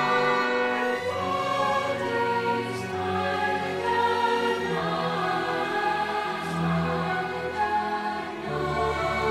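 Orchestral soundtrack music with a choir singing over it.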